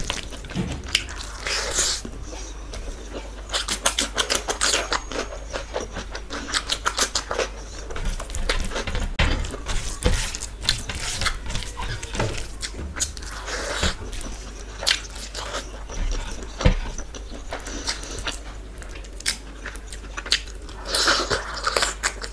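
Close-miked eating by hand: fingers squishing and mixing rice with dal and curry on a plate, then chewing with wet mouth clicks and lip smacks. Many short, sharp clicks and squelches follow one another throughout.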